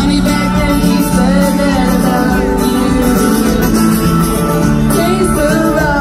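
Live band playing a song with guitars, a teenage girl singing lead into a handheld microphone over it.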